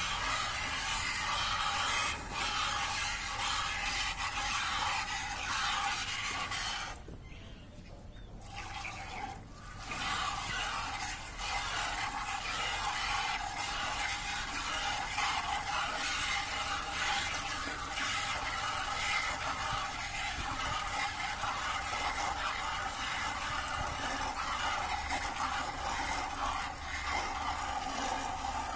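Hand milking of a Red Sindhi cow: thin streams of milk squirting from the teats into a plastic bucket, a steady run of hissing squirts that stops for a couple of seconds about seven seconds in.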